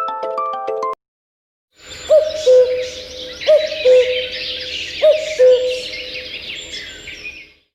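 Huawei P30 lite nature ringtone of birdsong: chirping birds with a repeated two-note hooting call, the second note lower and longer, heard three times. In the first second, the tail of a marimba-like ringtone cuts off before the birdsong starts.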